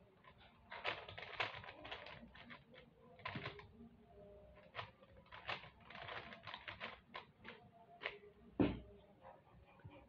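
Plastic puzzle cube (Rubik's-type) being turned by hand: irregular runs of quick clicks and rattles as the layers snap round, with one heavier thump about eight and a half seconds in.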